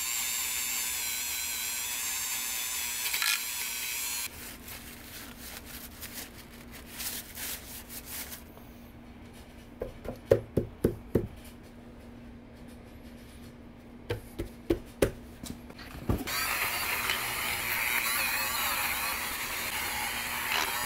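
Dremel rotary tool running, its whine wavering as it grinds and cleans old material off a motorcycle engine's valve cover. It stops after about four seconds, followed by a few sharp knocks and clunks of engine parts being handled, then the Dremel runs again for the last few seconds.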